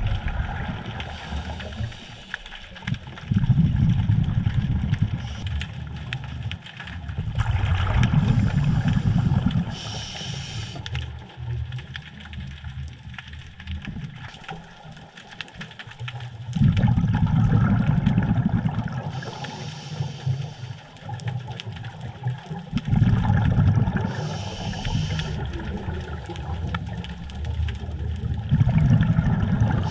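Scuba diver breathing through a regulator underwater: exhaled bubbles come in long low bubbling surges every five seconds or so, with a short high hiss of the regulator on the inhales.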